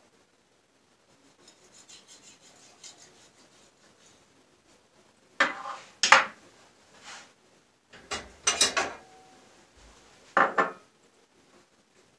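A kitchen knife and a herring being worked on a wooden cutting board during gutting and cleaning. Faint rapid scraping comes first, then a series of sharp knocks and clatters of the knife against the board over the second half.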